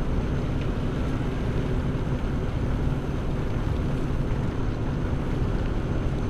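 Relaxation ambience of rain and a crackling fireplace: a steady low rumbling noise with a few faint crackles scattered through it.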